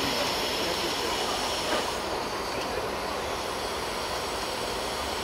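Steady mechanical noise of heavy machinery running, an even rumble and hiss with no distinct strokes or changes.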